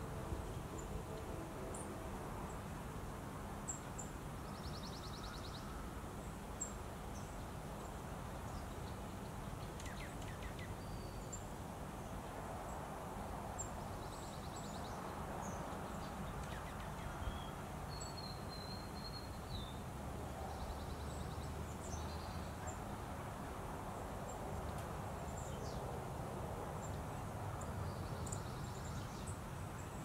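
Outdoor backyard ambience: distant songbirds giving scattered short high chirps, brief buzzy trills every several seconds and one warbling phrase past the middle, over a steady low rumble.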